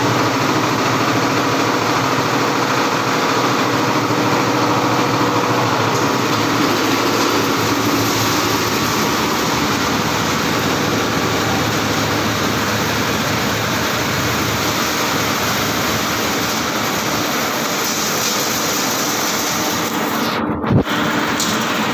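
Plastic agglomerator running steadily, its motor-driven rotor churning HD fishing-net scrap into granules that discharge from the side chute. Near the end the sound drops out briefly, followed by a single knock.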